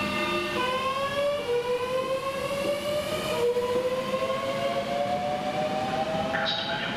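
Class 465/466 Networker electric multiple unit accelerating away, its traction equipment giving a whine that climbs in pitch in several steps. A rougher noise joins near the end.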